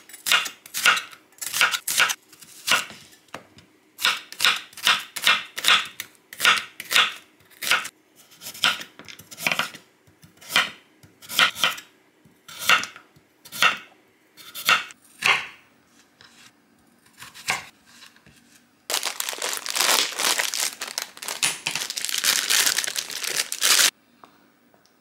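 Santoku knife slicing onion and then carrot on a wooden cutting board, cutting strokes about twice a second. Near the end there are about five seconds of dense crinkling and rustling.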